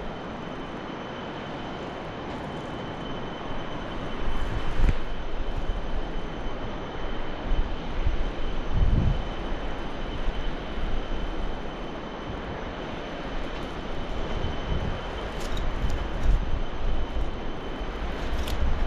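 Wind rushing and buffeting over a handheld action camera's microphone as a bungee jumper hangs and swings on the cord, with a few stronger low gusts. A faint steady high tone runs underneath.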